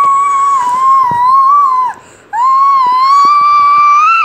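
A young boy wailing in two long, high cries of about two seconds each, with a short break between; the second rises slightly and then breaks off.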